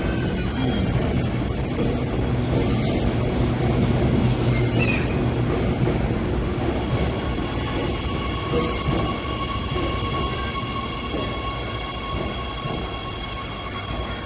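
Dongguan Line 2 metro train running past the platform: heavy wheel-and-rail rumble with a few sharp clacks. About halfway in, a steady high whine or squeal sets in, and the sound eases off toward the end.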